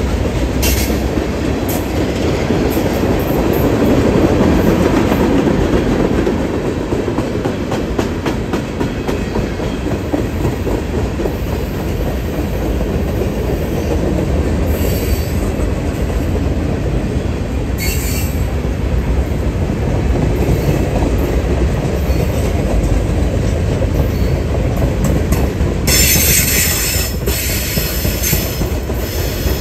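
Freight train's tank cars and gondolas rolling past: a steady rumble and clatter of steel wheels over the rails. Short high wheel squeals cut in a few times, with the longest stretch of squealing near the end.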